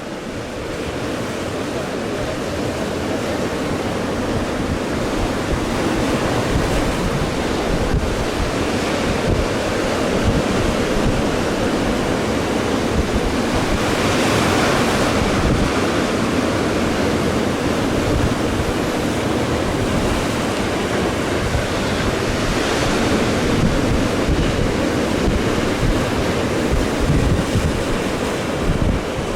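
Rough sea surf breaking on the shore, a continuous rush of waves with strong wind buffeting the microphone. Two waves surge louder, about halfway through and again about two-thirds in.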